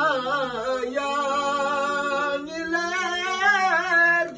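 A man singing solo and unaccompanied, holding long notes that waver and bend in pitch.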